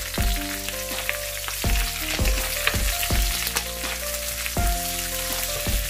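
Sliced onions sizzling in hot oil in a metal wok, with a wooden spoon scraping and tapping as they are pushed in and stirred. A slow, soft beat of background music sits underneath.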